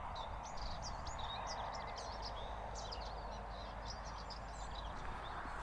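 Many small birds singing and chirping in quick, overlapping high notes over a steady faint background hiss of open countryside.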